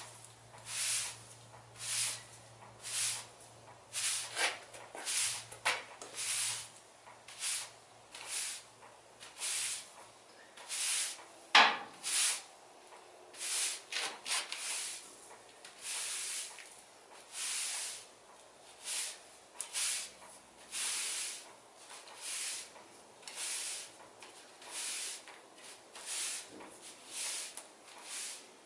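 Push broom sweeping a concrete driveway in brushy strokes, about one stroke a second. One sharp knock about midway through.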